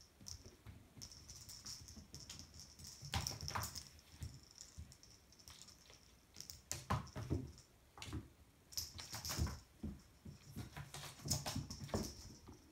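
A kitten's paws scrabbling and pattering on a wooden floor as it bats and chases a small toy ball, with irregular light taps and knocks of the ball and paws.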